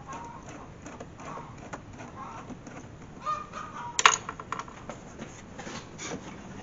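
Hard-plastic clicks and knocks from a car's engine air box and a screwdriver as the box is pried and worked loose, with a few short squeaky tones. A sharp click about four seconds in is the loudest sound.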